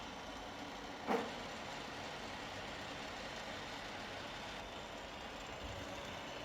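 Huron MU6 milling machine running with a steady mechanical hum, with one sharp knock about a second in.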